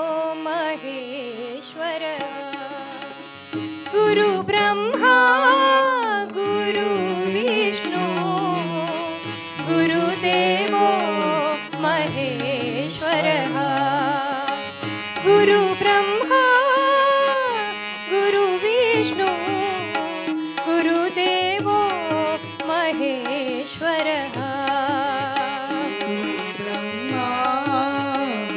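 Live keertan music: a voice sings a slow Indian devotional melody with long, wavering held notes and glides, over instrumental accompaniment with occasional drum strokes.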